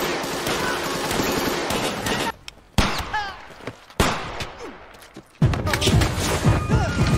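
War-film battle gunfire: sustained automatic fire, then two single rifle shots about a second apart in a quieter stretch, then heavy firing again near the end.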